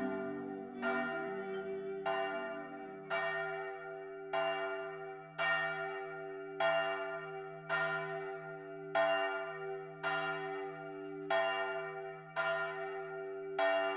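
A single church bell tolling steadily: about a dozen evenly spaced strikes, a little more than a second apart, each ringing on into the next.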